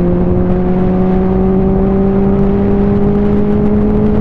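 Benelli TNT 600i's inline-four engine pulling steadily in gear, its pitch rising slowly as the motorcycle accelerates from about 100 to 120 km/h, with wind noise on the microphone.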